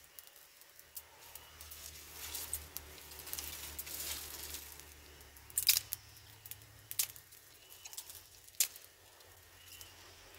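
Dry sticks being handled and broken by hand: rustling and scraping, then several sharp cracks, the loudest a little past halfway and another near the end.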